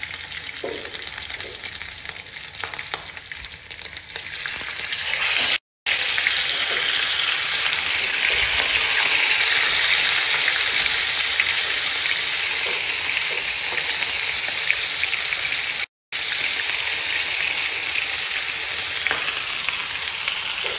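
Pieces of boiled lamb sizzling as they fry in hot ghee in a frying pan. The sizzle is fainter for the first few seconds and grows much louder from about five seconds in as more pieces go in. It drops out twice for a moment at cuts.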